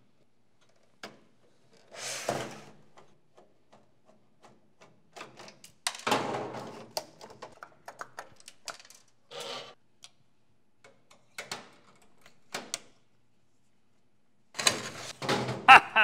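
Plastic and metal parts of a Hermes daisy-wheel electronic typewriter being handled during disassembly: scattered clicks, knocks and short scrapes, with louder clatter near the end as a large part is lifted out.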